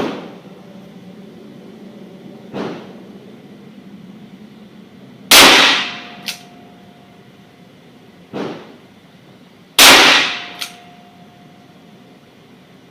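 .357 Magnum revolver firing handloaded .38 Special-case rounds slowly offhand: two loud, close shots about four and a half seconds apart, with three fainter gunshots, one at the start, one about two and a half seconds in and one about eight and a half seconds in.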